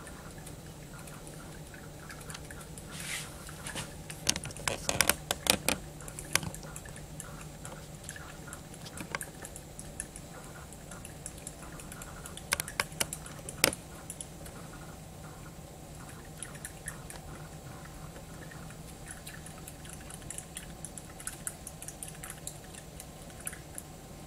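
A stirrer clicking and tapping against a small beaker as honey is stirred into water, in two clusters of quick taps with faint ticks in between, over a steady low hum.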